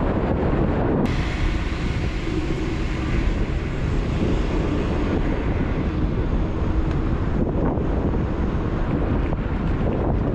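Wind buffeting a GoPro's microphone during a ride on a Mototec Thor 60V electric scooter, a dense, steady rush that grows brighter about a second in. Faint steady hum from the moving scooter lies underneath.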